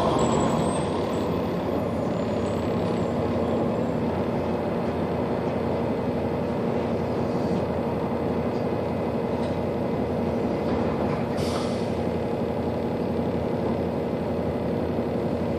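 City bus running steadily, engine and road noise heard from inside the cabin with a steady low hum. A brief high hiss comes about eleven seconds in.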